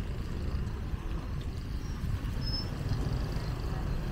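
Street ambience dominated by a steady, fluttering low rumble, with a couple of faint short high chirps around the middle.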